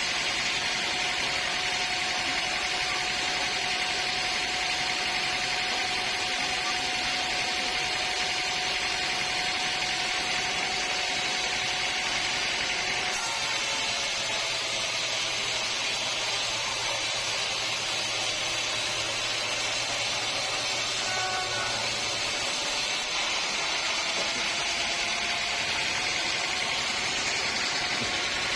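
Sawmill woodworking machinery running steadily with a continuous hiss and hum, changing slightly about halfway through.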